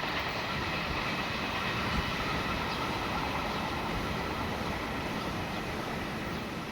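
Freight train rolling past: a steady rumble of wheels on the rails that eases slightly near the end.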